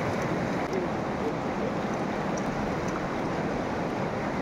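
River water rushing steadily past rocks.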